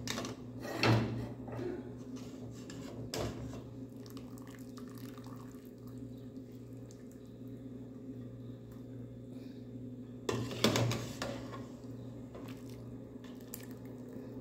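Long metal ladle stirring and knocking against the side of a large aluminium stockpot, with broth sloshing and dripping back from the ladle. A few sharp clinks stand out, loudest about a second in and again around ten to eleven seconds, over a steady low hum.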